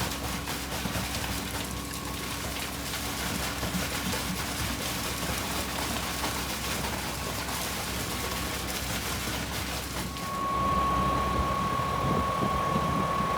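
Putzmeister 47-metre truck-mounted concrete pump running: a steady engine drone under a broad hiss. About ten seconds in, the hiss falls away and a steady high whine comes up louder.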